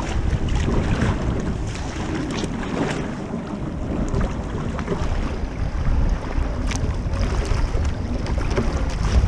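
Wind buffeting a kayak-mounted microphone over the rushing of shallow river current past the hull, with a few short paddle splashes.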